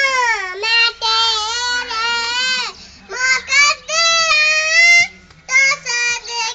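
A child singing alone in a high voice: long, wavering held notes in phrases, with short breaks for breath about half a second in, around three seconds in and a little after five seconds.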